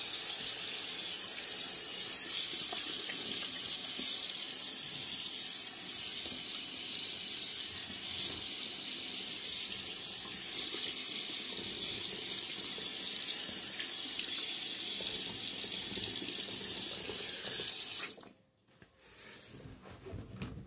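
Bathroom sink tap running in a steady stream, shut off abruptly about eighteen seconds in, between shaving passes.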